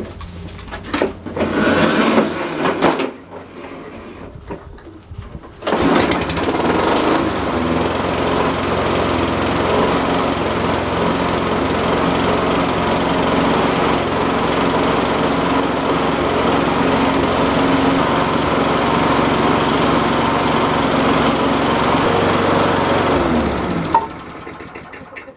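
Toro Personal Pace lawn mower engine, sitting unused all winter, catches about six seconds in after some clatter. It runs steadily, then slows and stops near the end.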